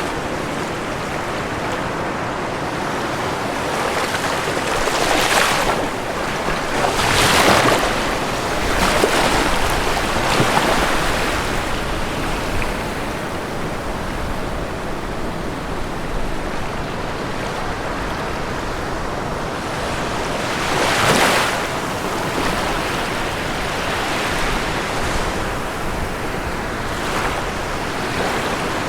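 Ocean surf: a continuous wash of water with waves breaking on the shore every few seconds, the loudest breaks about seven seconds in and again about twenty-one seconds in.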